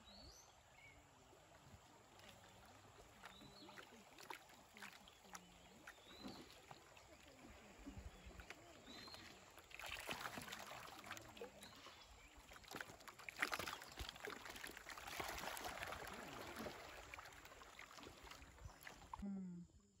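River water rushing and splashing around a bamboo raft drifting through a shallow riffle, growing louder in the middle stretch with small knocks and splashes, then cutting off suddenly near the end.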